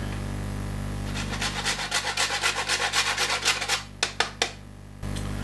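Whole nutmeg being grated on a hand grater: a run of quick rasping strokes, several a second, for about two and a half seconds, followed by three sharp taps.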